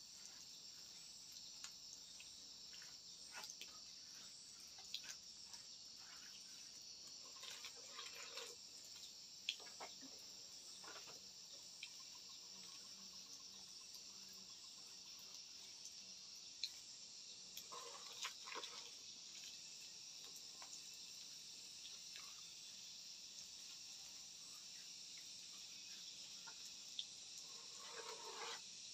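Faint, steady high-pitched chorus of insects such as crickets, with scattered small clicks and three short handling noises spread through it.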